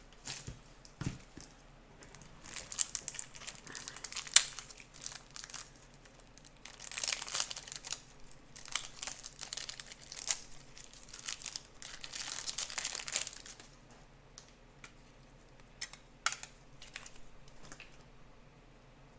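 Plastic card packaging crinkling and rustling in repeated bursts as trading cards are handled, followed by a few light clicks and taps near the end.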